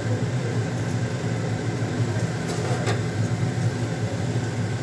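A steady low machine hum with a faint hiss over it and a single sharp click about three seconds in; no pressure-cooker whistle is sounding.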